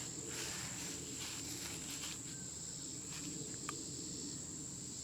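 Insects chirring outdoors: a steady, high-pitched drone over faint background noise, with one small click late on.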